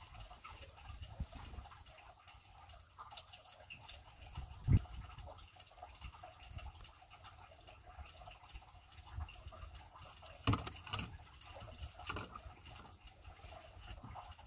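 Quiet ambience aboard a small wooden boat on the open sea: a low steady rumble with faint water noise, broken by a few short knocks, the loudest about five seconds in and again about ten and a half seconds in.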